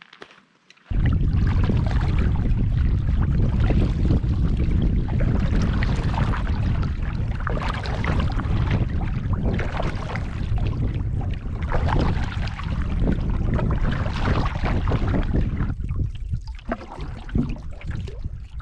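Water splashing and lapping around a canoe, cutting in suddenly about a second in over a deep steady rumble, and easing a little near the end.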